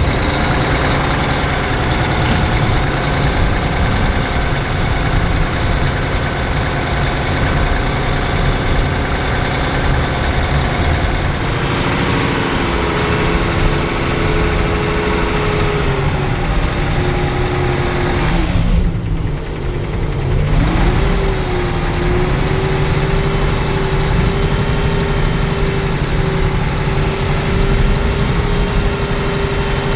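Heavy truck's diesel engine running at low speed as it moves off slowly with a house on its trailer. A whining tone comes in partway through, dips sharply in pitch and climbs back about two-thirds of the way in, then holds steady.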